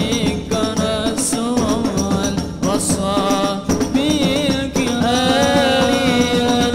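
A male lead voice sings an ornamented Islamic devotional song (sholawat) over a hand-drum ensemble of large barrel drums and frame drums. The sound comes amplified through a PA system.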